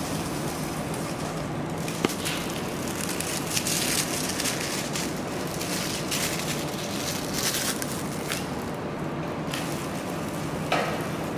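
Plastic film crinkling and rustling as it is handled and threaded over the rollers of a heat press machine, over a steady low machine hum. A sharp click comes about two seconds in and another near the end.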